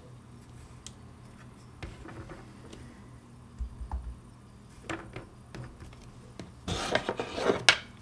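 Light clicks and knocks of bench handling: a wooden staking-set box and small metal tools being moved and set down. Near the end comes a louder rustling scrape with a few sharp clicks.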